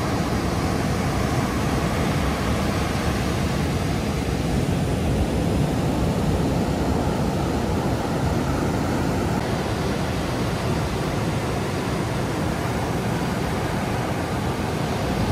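Ocean surf breaking and washing up the beach, a steady rush of noise with no single wave standing out.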